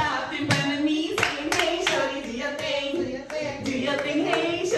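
A group clapping hands in a steady beat, about three claps a second, while voices sing a chant over it.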